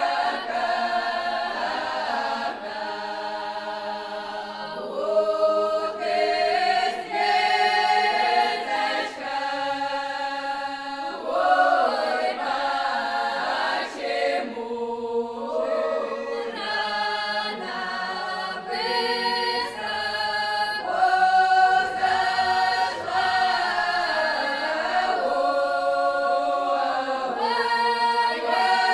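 Folk choir singing a traditional Kuban Cossack song unaccompanied, in several voice parts, in long held phrases with short breaks between them.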